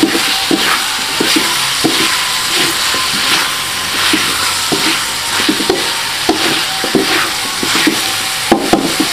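Wooden spatula stirring spring onion, celery, chicken and shrimp in chili paste around a hot wok, with repeated scraping strokes about once or twice a second over a steady frying sizzle.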